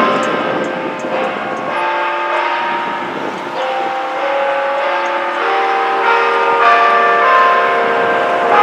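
Newly restored tower bells ringing, several bells struck one after another at different pitches, each tone hanging on and overlapping the next.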